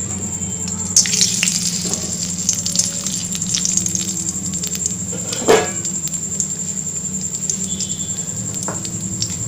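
Bay leaves and whole garam masala sizzling and crackling in hot mustard oil in a kadai, with louder pops about a second in and again past the middle. A steady high whine and a low hum run underneath.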